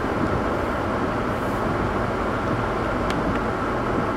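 Steady low rumble of a car moving slowly over wet pavement, engine and tyre noise heard from inside the cabin, with a couple of faint clicks about three seconds in.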